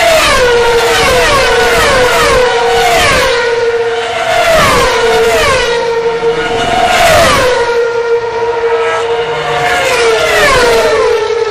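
Open-wheel race cars passing one after another at full speed, each high-pitched engine note dropping in pitch as it goes by, over a steady high engine note. The passes come in quick succession, thin out for a few seconds past the middle, then come in a tighter run near the end.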